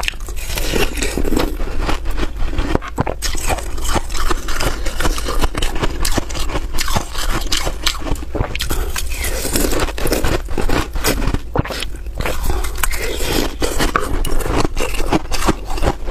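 Ice being bitten and chewed close to the microphone: a steady run of crisp crunching and crackling.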